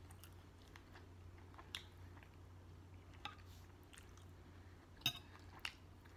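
A person chewing a mouthful of roasted potatoes and vegetables, faint and close to the microphone, with a few short sharp clicks, the loudest about five seconds in. A steady low hum runs underneath.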